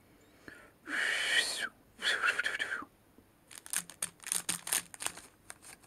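A person trying to whistle, producing two airy, breathy blows with only a faint tone, each just under a second long. They are followed by a flurry of light clicks and rustles.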